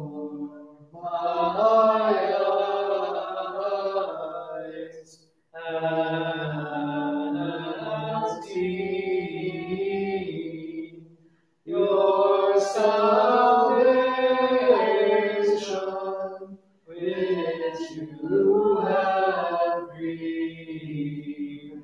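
Unaccompanied Byzantine liturgical chant, sung in four phrases of about four to five seconds each with short breaks between them.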